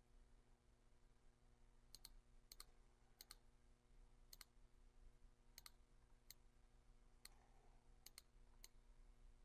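Faint computer mouse clicks, about nine at irregular spacing, some in quick pairs, over a low steady hum.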